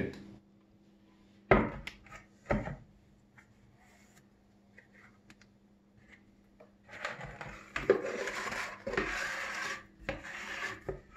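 Meringue being scraped from a plastic bowl into a plastic piping bag: two knocks about a second apart near the start, then, from about seven seconds in, several seconds of rubbing and scraping of the utensil against the plastic.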